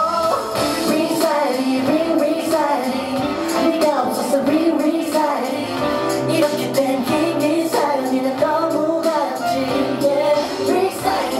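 A man singing a pop song live into a microphone, with instrumental accompaniment underneath; his voice moves in held, bending melodic lines.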